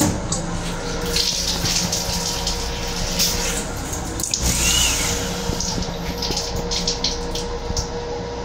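A sensor faucet in a commuter railcar's restroom running water into the sink, over the railcar's steady running rumble.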